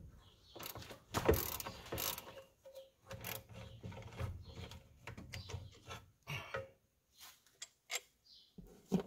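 Irregular metal clicks and scrapes as the recoil-starter flywheel cover is worked loose and lifted off a rusty 1968 JLO Rockwell 292 two-stroke snowmobile engine. The sounds come in short bursts and thin out to a few ticks near the end.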